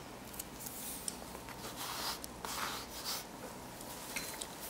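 Soft rubbing and handling of ribbon cable and small plastic IDC connector parts, with a few light clicks.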